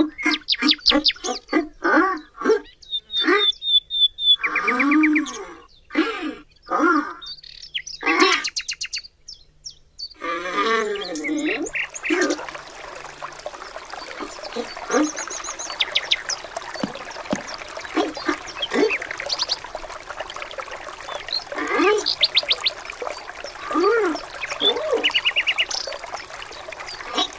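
Birds chirping and calling. About twelve seconds in, a steady outdoor background hiss comes in under the chirps.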